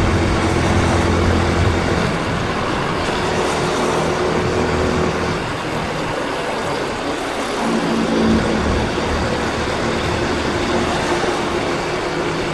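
Yamaha Crosser 150's single-cylinder engine running under way, its pitch shifting as speed changes, over a steady rush of wind and surrounding city traffic.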